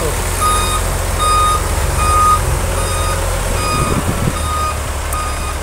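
Reversing alarm on a Sinotruk container truck beeping just under twice a second, over the low rumble of the truck's diesel engine.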